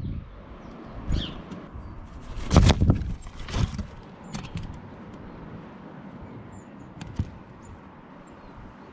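A few irregular knocks and thumps, the loudest about two and a half seconds in, with faint high bird chirps between them.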